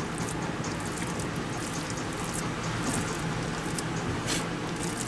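Fingers pressing and mixing ghee into soft rice on a steel plate, giving faint, soft squishing ticks over a steady background hiss.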